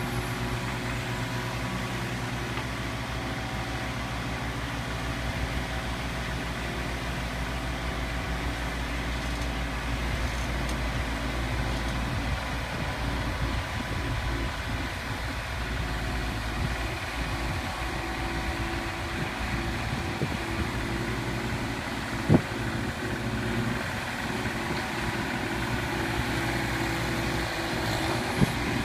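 Mini skid steer loader's engine running steadily, with a sharp knock about three-quarters of the way in and another near the end.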